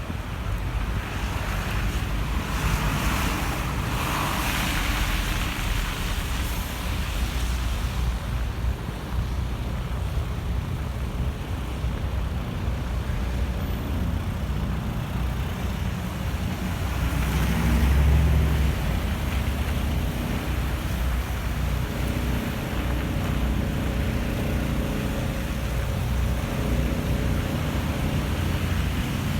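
Wind buffeting the microphone in a snowstorm, a steady low rumble, with city traffic hissing past on slushy streets; louder swells come a few seconds in and again past the middle.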